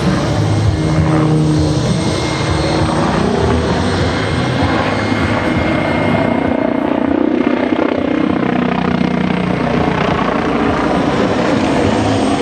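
MBB Bo 105 helicopter flying aerobatic manoeuvres: the beat of its four-blade main rotor and the run of its twin turboshaft engines, changing in pitch as it manoeuvres.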